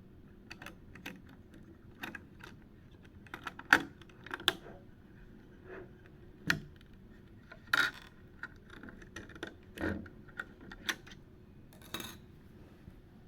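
Irregular clicks, taps and light clatter of small hard parts being handled, with the sharpest clicks about four and eight seconds in.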